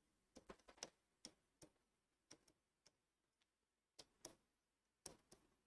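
Faint, irregular clicks and taps of a pen on a writing board as words are written, in small clusters about half a second in, around four seconds and around five seconds, with near silence between.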